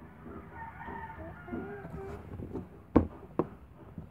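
A chicken clucking in the background for the first couple of seconds, then two sharp knocks about half a second apart, the loudest sounds here.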